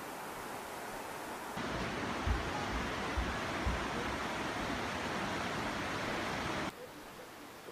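Steady rush of stream water. It steps up louder about one and a half seconds in and drops back suddenly near the end, with a few low bumps on the microphone in the middle.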